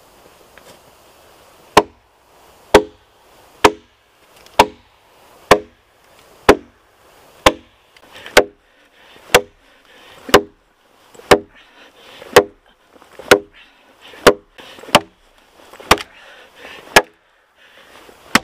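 Hatchet chopping into a fallen spruce log: sharp, loud blows about one a second, starting a couple of seconds in and running on, as a V-notch is cut through the trunk until it splits apart.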